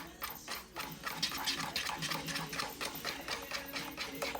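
Brownie batter being stirred by hand in a mixing bowl: quick, even strokes of the utensil scraping and tapping, several a second.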